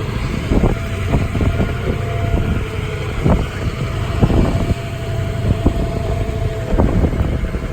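Safari tour tram driving along: a steady low rumble with a faint whine, and scattered knocks and rattles.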